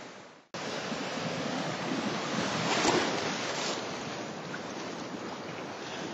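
Choppy lake waves washing in at the shoreline, heard from just above the water, with wind blowing on the microphone. The sound fades out and cuts back in about half a second in, and a wave washes louder around three seconds in.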